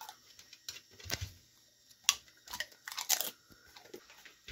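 A dog chewing a crunchy piece of dried beef lung, with a few separate sharp crunches, the loudest about two and three seconds in.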